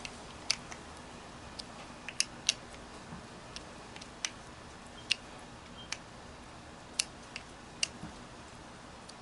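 Sharp, irregular clicks, about one a second, as a screwdriver tightens the screws of a clamp-type hose coupler.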